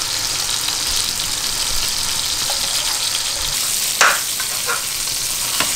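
Almaco jack fillets shallow-frying in peanut oil in a stainless steel pan, with a steady sizzle. About four seconds in there is a sharp knock as a metal spatula lifts a fillet from the pan.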